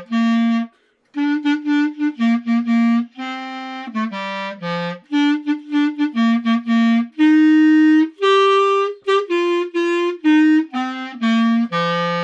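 Solo clarinet playing a melody, mostly in short separate notes with a few longer held ones, and a brief pause about a second in.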